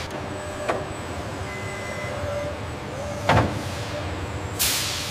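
Forklift and warehouse machinery: a steady low hum with a sharp knock about a second in and a louder clank past the middle, then a hiss of air near the end.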